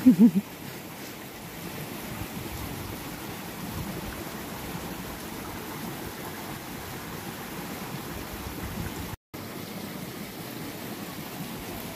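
Steady rushing of a shallow stream flowing over stones, with a brief loud voice right at the start. The sound cuts out for an instant about nine seconds in.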